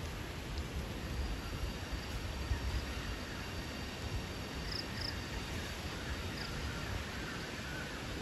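Jungle ambience: faint steady insect buzzing with a few short high chirps around the middle, over a low, uneven rumble.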